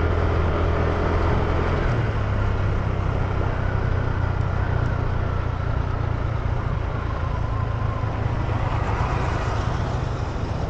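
Motor scooter engine running while riding, its note changing about two seconds in, with steady wind and road noise on the microphone.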